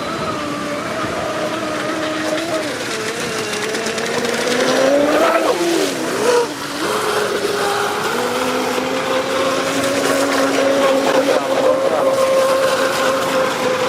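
Traxxas M41 RC catamaran's brushless electric motor whining under a rushing hiss, its pitch rising about four to five seconds in, dropping and wavering briefly around six seconds, then holding high and steady for the rest.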